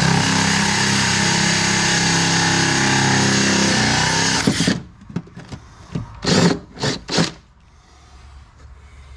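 DeWalt 20V cordless drill spinning a 1¾-inch hole saw through fiberglass. It runs steadily for about four and a half seconds, then stops as the saw breaks through. A few short, loud noises follow.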